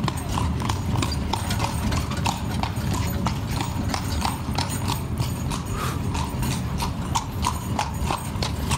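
A horse's hooves clip-clopping in a steady rhythm on stone paving as it pulls a carriage, over a steady low rumble.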